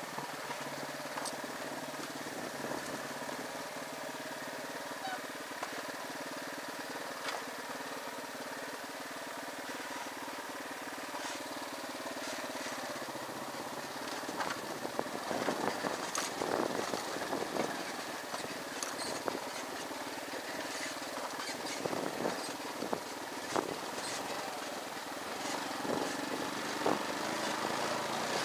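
Motorcycle engine running steadily while riding a rough dirt track. From about halfway on, repeated knocks and rattles from the bike jolting over bumps, with the engine getting a little louder near the end.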